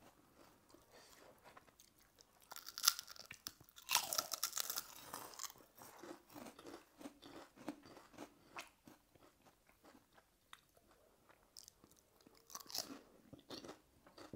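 Close-miked chewing and crunching of crisp food, a steady run of small crackles with louder crunching bites about three and four seconds in and again near the end.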